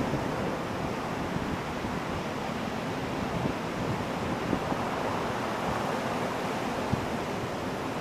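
Ocean surf: waves breaking and washing up a beach in a steady, continuous rush.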